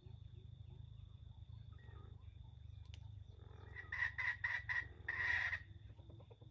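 Junglefowl (wild chicken) calling about four seconds in: four quick short notes, then one longer note, over a faint steady high whine.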